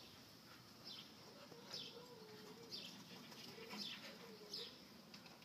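A bird chirping faintly, short high falling chirps about once a second.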